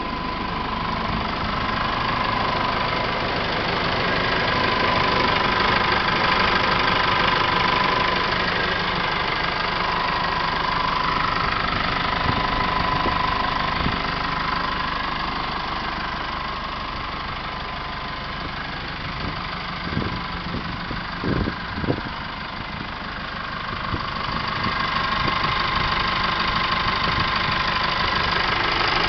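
Holden Colorado RG's 2.8-litre four-cylinder turbo diesel idling steadily with diesel clatter, a high whine wavering over it. A few brief sharp knocks sound about two-thirds of the way through.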